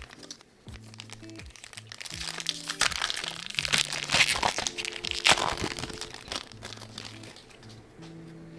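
Foil Pokémon booster pack wrapper crinkling as it is handled and opened, loudest from about two to six seconds in, over background music.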